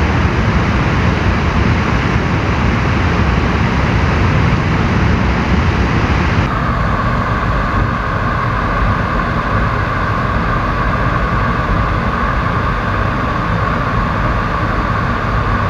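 Steady rushing of wind and flowing creek water, then about six seconds in it switches suddenly to the steady hum and whine of a camera drone's propellers.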